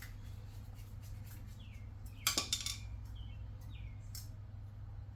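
Small metal clinks from a screwdriver and carburetor parts being handled: a quick cluster of clinks a little over two seconds in and one more about four seconds in, over a steady low hum.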